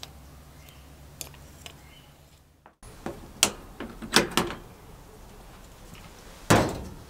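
A few faint scraper ticks on the engine cover, then the side door of a sandblasting cabinet unlatched with several sharp metallic clicks of its lever latch and swung open, with a heavy clunk about six and a half seconds in.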